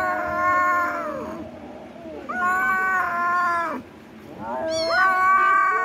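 Kitten meowing in three long, drawn-out calls, each held for about a second and a half, with short pauses between them.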